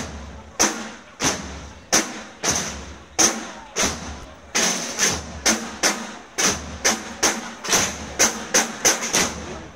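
Procession band's snare drums struck in a slow march beat: sharp separate hits at first about one or two a second, coming closer together in the second half.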